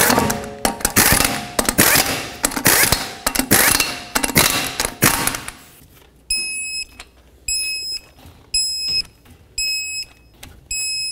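A 1/2-inch pneumatic impact gun hammers the lug nuts down in several quick bursts. About six seconds in, an electronic torque wrench starts beeping, short beeps about once a second, as the nuts are brought to 100 foot-pounds.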